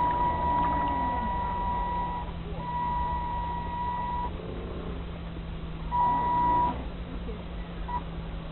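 RC model boat's electric drive whining at one steady high pitch, switching on and off several times as the throttle is worked, over a constant low hum.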